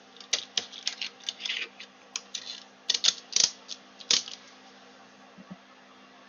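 Light, irregular clicks and taps of small hand tools, such as tweezers, and a small circuit board being handled at a soldering bench. About a dozen in the first four seconds, then they stop.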